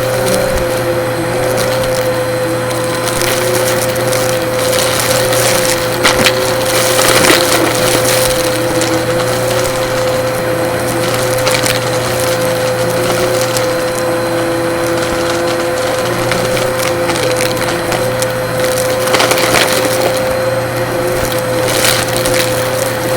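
Vacuum cleaner running with a steady high motor whine while it sucks up crunchy debris, which crackles and rattles irregularly through the machine, with louder bursts of crunching about six to eight seconds in and again near the end.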